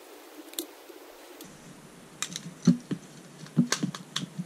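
Sharp plastic clicks and taps from a plastic batten lamp holder being handled and its cover twisted back on, the clicks coming irregularly and thickest in the second half. A low steady hum comes in about a second and a half in.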